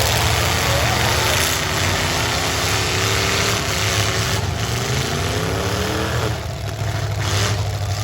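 Demolition derby cars' V8 engines running loud, one revving with its pitch climbing steadily for several seconds, then dropping off about six seconds in.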